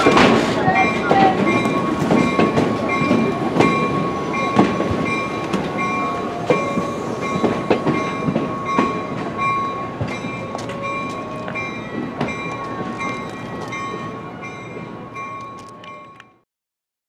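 Excursion train cars rolling slowly past, wheels clicking over the rail joints, with a thin steady squeal. The sound fades and cuts to silence near the end.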